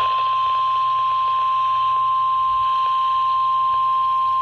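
NOAA Weather Radio 1050 Hz warning alarm tone signalling a tornado warning: one steady, unbroken high tone over faint radio hiss.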